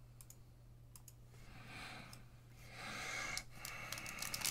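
Trading cards being handled: a few light clicks, then a soft rustling of cards sliding over one another that grows louder about three seconds in.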